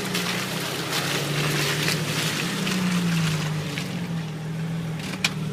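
Off-road 4x4's engine running at low revs as it crawls over rocks, its pitch rising a little about halfway through and then settling. A rough crackling hiss sits over it for the first few seconds, and there is one sharp knock near the end.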